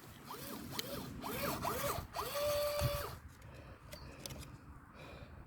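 Small electric RC winch motor stuttering as it reels in, cutting in and out in short rising-and-falling whirs about three times a second, then running steadily for under a second before stopping about three seconds in. The owner puts the stuttering down to a low transmitter battery rather than the winch itself.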